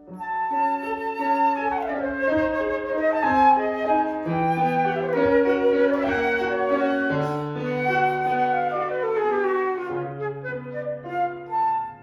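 Concert flute playing a classical piece with piano accompaniment, quick rising and falling runs of notes over sustained low piano notes.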